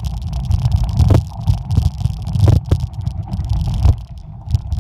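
Wind buffeting the microphone of a handheld or mounted camera on a mountain bike moving downhill, with the bike rattling and knocking over a rocky dirt trail. The buffeting eases about four seconds in.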